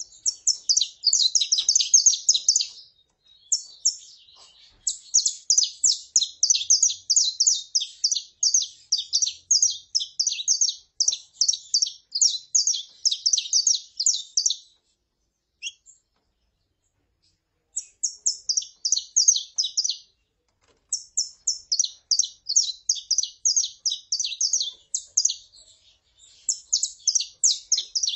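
Saffron finches, a female calling and a male singing: long runs of quick, sharp, high-pitched notes. They break off for about three seconds midway and again briefly a few seconds later.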